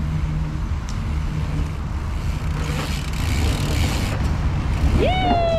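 Wind rumbling on the microphone and the tyres of a bicycle rolling over a pump track, with a rush of hiss swelling in the middle. Near the end a high voice cries out in one long call that falls slowly in pitch.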